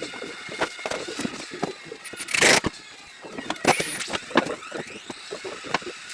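Irregular knocks and clicks of carpentry work, with one short, loud hiss about two and a half seconds in.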